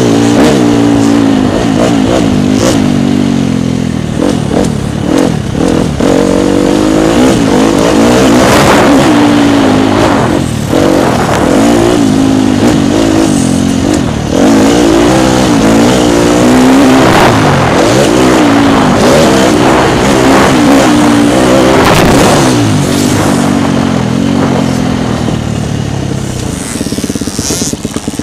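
Dirt bike engine heard from the bike itself, revving up and dropping back again and again as it is ridden around a motocross track. The engine eases off and gets quieter near the end.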